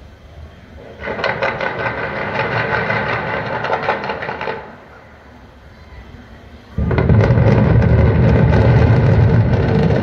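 Controlled explosive demolition of a high-rise apartment block: about seven seconds in a sudden loud blast breaks out into a sustained deep rumble and crackle as the building comes down. Before it, from about a second in, a separate noisy crackling sound lasts some three and a half seconds and then stops.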